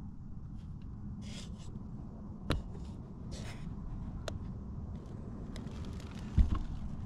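Scrapes and rustling from someone moving about and handling things. A sharp click comes about two and a half seconds in and another near the middle, and a dull thump near the end is the loudest sound.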